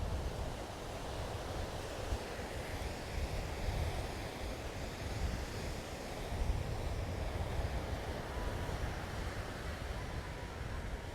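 Ocean surf washing on the beach under a steady wind, with wind rumbling and buffeting on the microphone.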